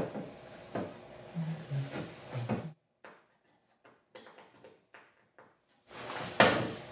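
A screw is driven by hand with a screwdriver through the plastic back of a sprinkler controller held against a wall. The sound is a run of knocks and clicks from the plastic housing and the screwdriver, then a few seconds of faint ticking as the screw turns, and a sharp knock near the end.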